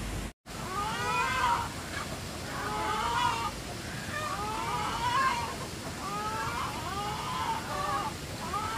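Chickens calling: a run of about six wavering calls, each about a second long, roughly a second and a half apart, after a brief dropout in the sound just after the start.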